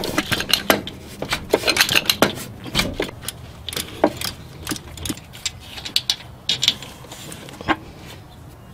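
Socket ratchet clicking in quick runs, with clinks of metal tools, as the tight rear 14 mm starter bolt is worked loose and backed out.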